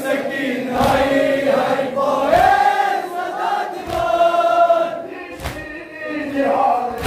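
A crowd of men chanting a noha, a mourning lament, together in a sustained melody. Sharp chest-beating (matam) strikes land in time with it about every second and a half.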